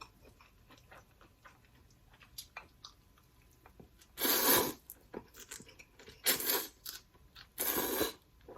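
Close-miked eating of a ramen and shrimp meal: soft chewing clicks, then three loud, noisy half-second bursts of crunching or slurping, about four, six and a half, and eight seconds in.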